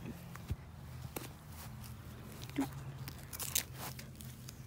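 A few scattered crunches and small crackles from broken pieces of a paper mask being handled in the grass, the loudest a quick pair about three and a half seconds in, over a faint low hum.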